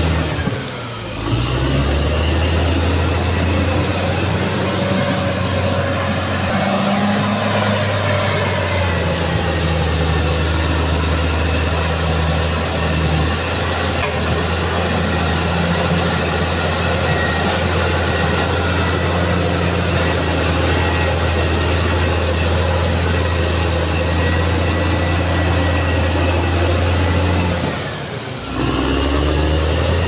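Caterpillar D6R XL bulldozer's diesel engine running steadily under load as it pushes earth, with a steady low hum that dips briefly about a second in and again near the end.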